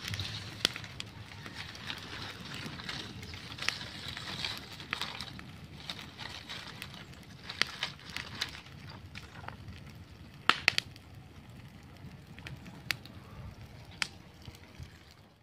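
Open fire of dry leaves and twigs burning with a steady crackle and sharp pops scattered through, the loudest pair about ten and a half seconds in.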